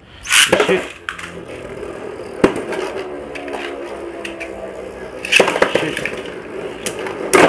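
Beyblade spinning tops launched into a plastic stadium. A launcher zips and the top lands just after the start, and a second top is launched and lands at about five seconds. Between the launches there is a steady whir of a top spinning in the bowl, and near the end there are sharp clicks as the two tops strike each other.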